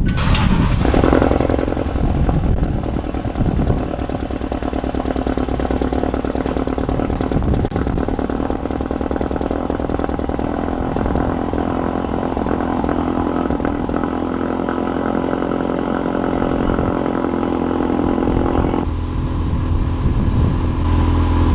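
Ford Focus RS Mk3's 2.3-litre turbocharged four-cylinder just after start-up, running a fast cold idle that settles lower about nineteen seconds in. The intermittent rough idle being listened for is 'not so bad this time'.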